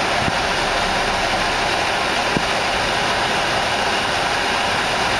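Hummer H2's climate-control blower fan running high: a loud, steady rush of air from the dash vents.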